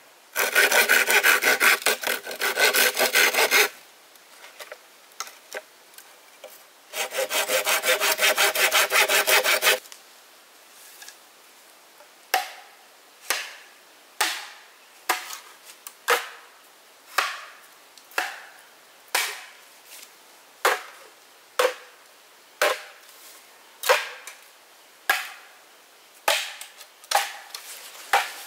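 A saw cutting wood in two bursts of quick back-and-forth strokes, then, after a pause, single sharp chopping strikes into wood, about one a second.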